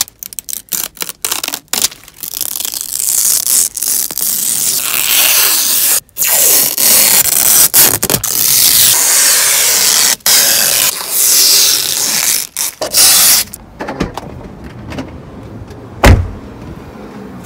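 Protective plastic film and tape being peeled off the new interior trim of a Kia Carnival: a loud crackling, ripping hiss in long pulls that stop and start abruptly, dying down near the end. A single loud thump comes near the end.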